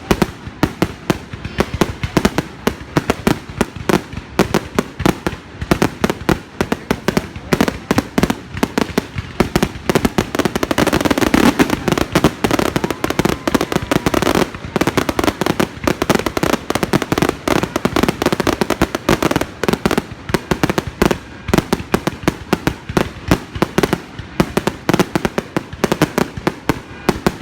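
Fireworks going off in a rapid, dense run of bangs and crackles, many per second, thickest about halfway through.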